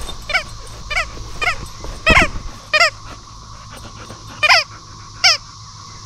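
Dumbbell-shaped squeaky dog toy squeaking as a dog chews on it. There are seven short squeaks at irregular intervals, the loudest about two seconds in.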